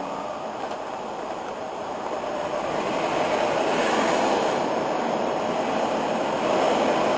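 Steady rushing road and wind noise inside a moving vehicle's cabin, growing a little louder a few seconds in.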